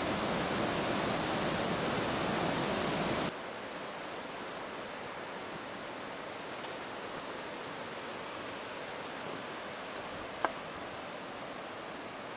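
Steady rush of a mountain creek, loud at first, cutting abruptly after about three seconds to a quieter steady rush of a distant cascade. A single sharp click comes near the end.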